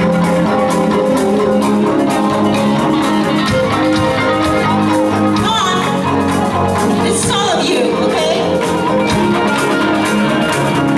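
Live band playing amplified pop-rock: electric guitar, bass, drum kit and keyboard, with a singer's voice over the band around the middle.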